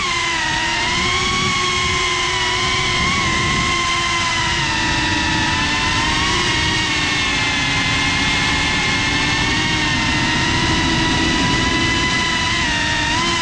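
FPV quadcopter's brushless motors and propellers whining steadily in flight, the pitch drifting gently up and down as the throttle changes.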